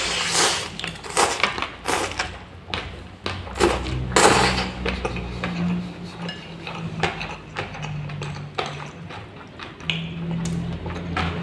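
Eating fried instant noodles and fried meatballs: a string of short, sharp clinks of a utensil on a plate, and mouth sounds, with a low steady hum underneath.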